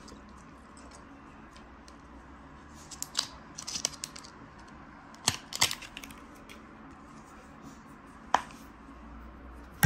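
Handling noise: scattered light clicks and rustles as a short USB-C cable and plastic packaging are moved about on a desk, with a sharper tap at the very end.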